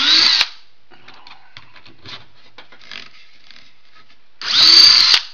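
Cordless drill driving screws into wooden boards: a burst of motor whine that stops about half a second in, a few light clicks and taps, then a second short, loud burst near the end.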